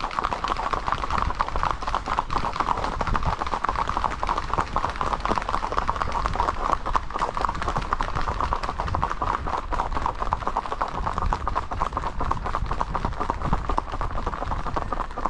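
Horses' hooves clattering on an asphalt road at a fast, even gait: a rapid, steady run of hoofbeats from the ridden horse and the horses close by.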